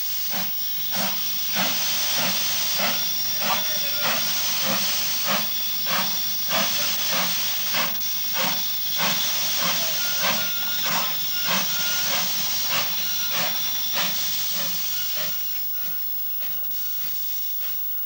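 Steam locomotive chuffing at a steady pace of about two beats a second, over a constant hiss of steam. It fades over the last few seconds.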